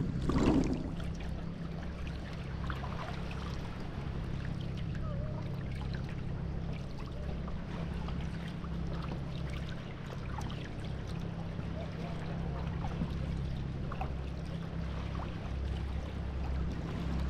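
Water trickling and splashing around a sea kayak being paddled with a Greenland paddle: drips and small splashes from the blade, with a brief louder splash at the very start. A steady low rumble runs underneath.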